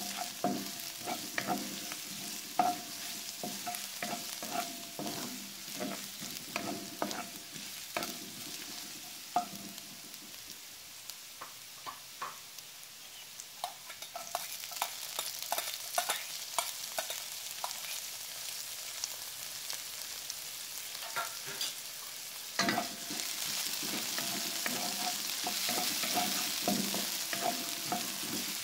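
Diced celery, ginger and red chilli sizzling in hot oil in a wok, with a wooden spatula scraping and tapping the pan many times. The sizzle grows about halfway through, once the chopped chilli is in the pan, and grows louder again for the last few seconds.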